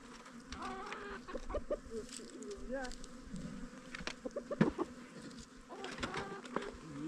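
Short, wavering bird calls, many in quick succession, in two clusters: one early and one near the end.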